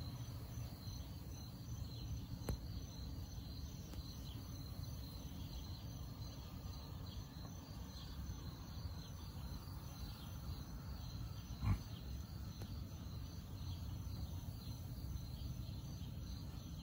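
Crickets chirping faintly and steadily over a low outdoor rumble, with one short low sound about twelve seconds in.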